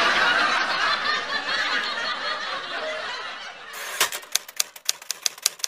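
A canned laugh-track sound effect of crowd laughter, fading away over the first few seconds. About four seconds in, a typewriter sound effect starts: rapid key clicks, about five a second.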